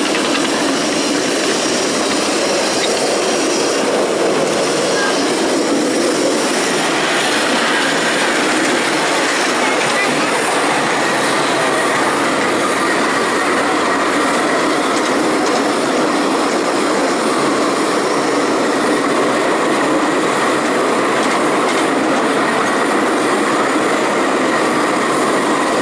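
Steady rattle and rumble of a miniature park railway train's riding cars running along the track, heard from aboard.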